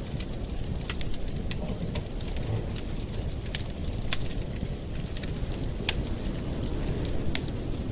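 Campfire burning: a dozen or so sharp, irregular crackles and pops of burning wood over a steady low rush.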